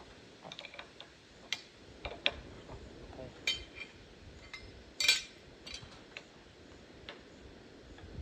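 Hand tools clicking and clinking against a hydraulic hose fitting as it is worked loose: scattered, irregular sharp metallic clicks, the loudest about five seconds in.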